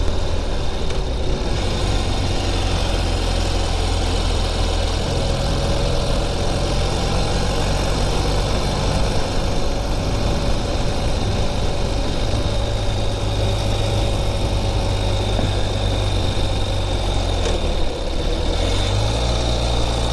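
A Ural Gear Up sidecar motorcycle's air-cooled boxer-twin engine running under way, with wind and road noise. The engine note shifts several times, with a brief dip near the end.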